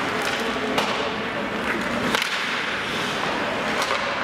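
Ice hockey game in an arena: skates scraping on the ice and a few sharp clacks of sticks and puck, over a murmur of spectators' voices.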